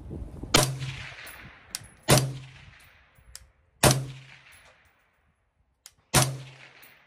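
Four suppressed rifle shots from a 14.5-inch AR-pattern rifle fitted with a Dead Air Ventum titanium flow-through suppressor. The shots come about two seconds apart, each a sharp report with a ringing tail that dies away over about a second. The bullet's supersonic crack still comes through, so the shots are not really hearing safe. A few faint clicks fall between the shots.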